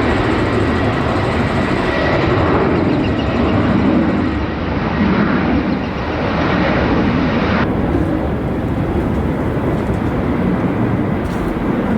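Boeing 737-800's CFM56-7B jet engines at takeoff thrust: a loud, steady rush of engine noise. About eight seconds in, the higher hiss drops away suddenly, leaving the lower rumble.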